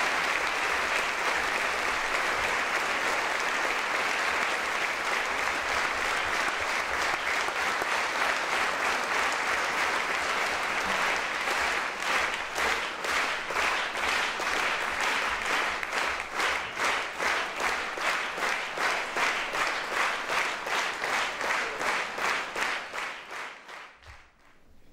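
Audience applause, at first an even wash of clapping. About halfway through it turns into rhythmic clapping in unison, about two and a half claps a second, then dies away near the end.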